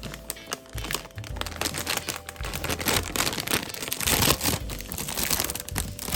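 Crinkly plastic chip bag being handled, with a dense, continuous run of crackles that is loudest a little past the middle.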